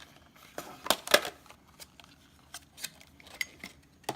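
Scattered clicks and taps from handling a Zippo lighter and its clear plastic case, the loudest just over a second in.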